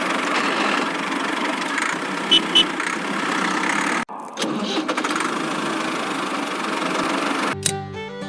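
A small engine running steadily, with a short break about four seconds in and two brief high beeps before it. Musical tones come in near the end.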